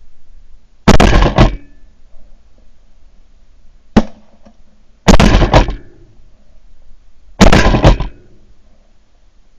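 Four shotgun shots, sharp and loud, about one, four, five and seven and a half seconds in. Three of them are long and heavily clipped, and the one near four seconds is a short crack.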